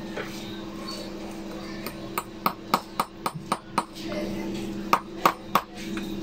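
Small hammer driving nails through a new heel piece into a high-heeled shoe's heel: about a dozen quick, light taps, in a run starting about two seconds in and three more near the end, over a steady low hum.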